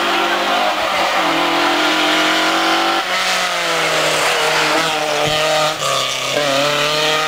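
Rally cars' engines at high revs on a hill climb, the pitch rising and dropping with throttle and gear changes. The sound changes abruptly about three seconds in and again near the end, where the footage cuts between cars.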